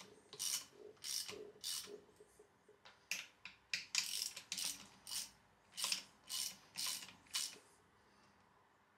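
Hand ratchet wrench working a socket to tighten the nuts of a mechanical fuel pump onto an A-series engine block. It makes a run of short ratcheting rasps, roughly two a second with a pause near two seconds in, and they stop about seven and a half seconds in.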